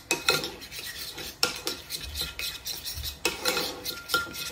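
A spoon clinking and scraping against a bowl as it stirs a thick yogurt marinade, in quick, irregular strokes.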